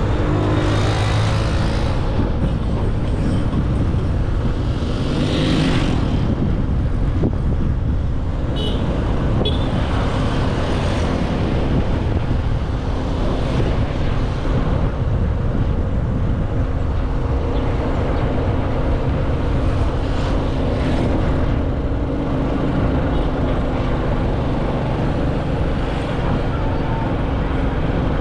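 Motorcycle running as it rides through town traffic, with a steady low rumble of wind on the microphone.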